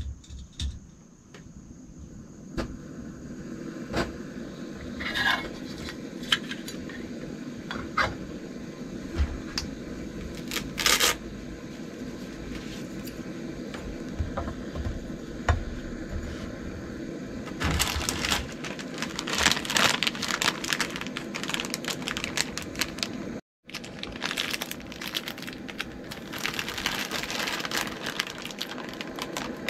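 Small gas canister stove burning steadily under a lidded titanium pot, with scattered light clicks. In the second half, a plastic instant-noodle packet crinkles in patches as it is handled.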